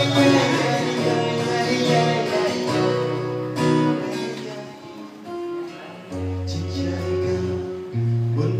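Acoustic guitar strummed, its chords held and left to ring, with a man singing along. The music drops a little quieter about midway.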